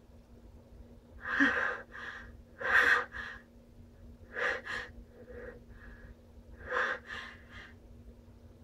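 A person's sneeze build-up: short, sharp gasping breaths in quick pairs, about one pair every second and a half, the hitching in-breaths before a sneeze.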